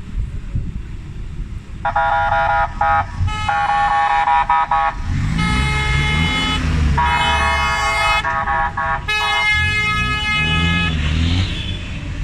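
Car horns honking in long blasts, one after another with several different pitches, from about two seconds in. Underneath, the engines of pickup trucks and SUVs can be heard as they drive slowly past in a convoy.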